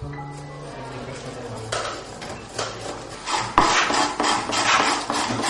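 Hand tools cutting wood: a run of short rasping strokes that starts about two seconds in and grows louder and quicker, with a few steady tones underneath at first.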